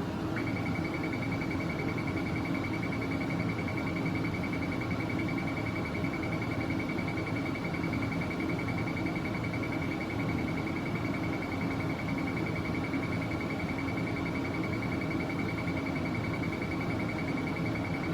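CT scanner running with a steady low hum, joined about half a second in by a thin, steady high-pitched tone that holds unbroken.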